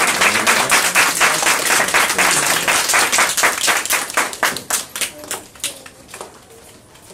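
Audience of parents applauding with many overlapping hand claps, thinning out and dying away about five to six seconds in.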